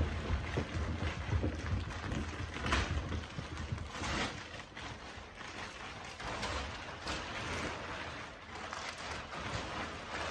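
Clear plastic wrapping rustling and crinkling in irregular bursts as it is pulled off a vacuum-compressed bed-in-a-box mattress, over a low steady rumble.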